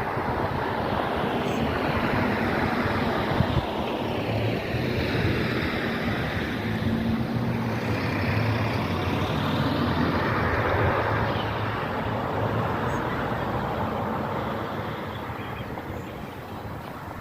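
A vehicle passing by: a steady rushing noise with a low engine hum that swells as it goes past and fades away near the end.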